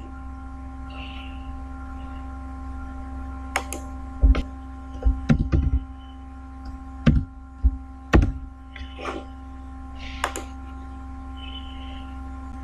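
Scattered computer keyboard keystrokes and mouse clicks, a few of them heavy thuds, over a steady electrical hum.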